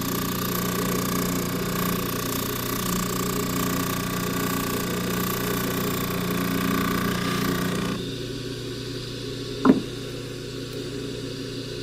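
Bench polishing motor running with a rouge-loaded buffing wheel as a silver box chain is pressed lightly against it: a steady motor hum under a hissing rub of chain on wheel. About eight seconds in the chain comes off the wheel and only the motor's hum goes on.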